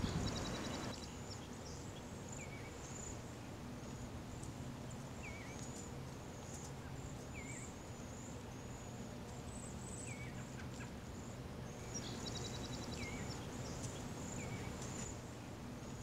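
American tree sparrows calling: many short, high twittering notes, with a lower chirp every second or two and a brief rattling trill twice, about a second in and near 13 s. A faint steady low hum lies underneath.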